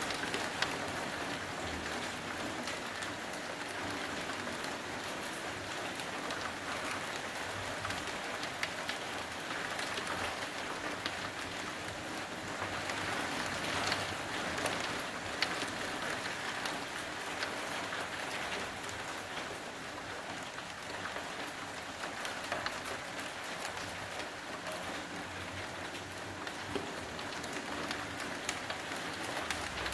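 Steady rain falling, with scattered close drops ticking sharply over the even hiss of the downpour.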